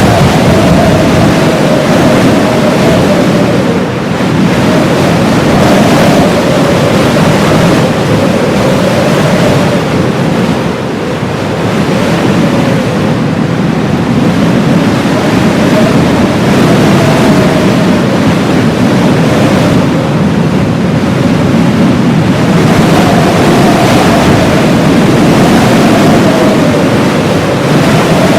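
Blizzard wind blowing hard and steadily, with a howl that slowly rises and falls in pitch.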